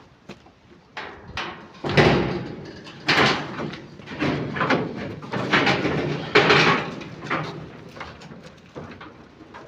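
A run of clattering bangs and knocks, loudest through the middle few seconds.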